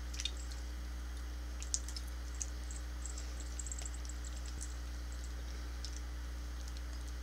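Faint scattered small clicks and sticky ticks from a soft, chewy filled Twizzler candy twist being pulled apart by hand and chewed, with a cluster of them near the middle, over a steady low hum.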